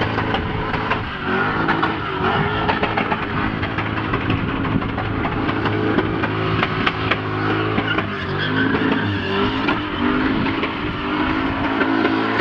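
Car engine running at fairly steady revs, with a rapid crackle throughout.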